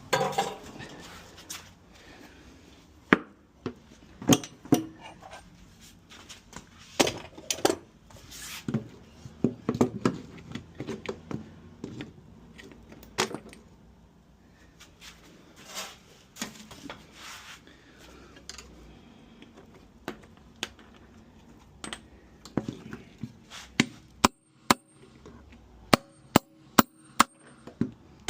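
Hand-tool knocks, taps and clatter at irregular intervals, ending in a run of sharp taps about two a second.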